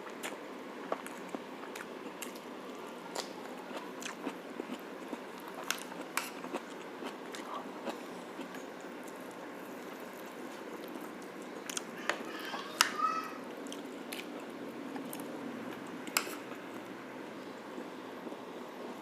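Close-up eating sounds of braised pork shank being bitten and chewed, with wet mouth clicks and smacks scattered throughout. A louder cluster of sounds comes about twelve seconds in.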